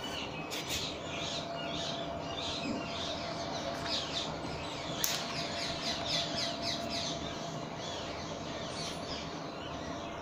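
Small birds chirping in quick, short repeated calls, with a single sharp click about five seconds in and a faint steady hum underneath.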